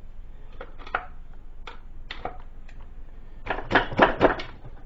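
Scattered metallic clicks and taps of a screwdriver working the wire clamp connector screws in a steel electrical box, with a quick run of louder clicks late on.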